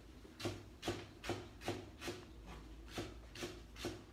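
Chinese cleaver chopping Chinese chives on a thick round chopping block: a steady run of sharp knocks, about two to three chops a second.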